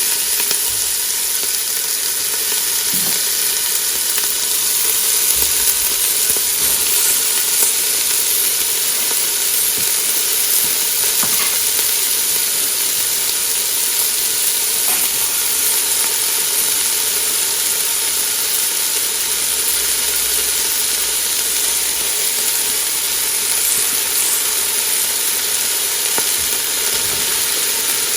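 Chopped onion, garlic, peppers and okra sizzling in hot oil in a pot, a steady high hiss, with a few light knocks as they are stirred.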